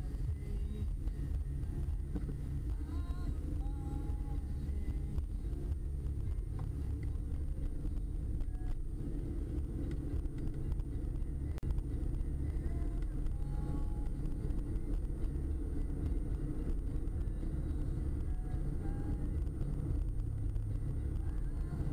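Steady road noise of a moving car heard from inside its cabin: a low, even rumble of engine and tyres at cruising speed.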